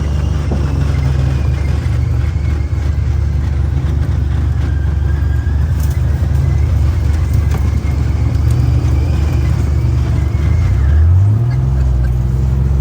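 John Deere Gator utility vehicle's engine running steadily under way, rising in pitch near the end as it speeds up.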